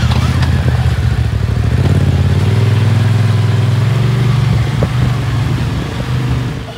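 Off-road 4x4's engine running under load as it crawls over rocks, its pitch rising a little a couple of seconds in, then fading away near the end.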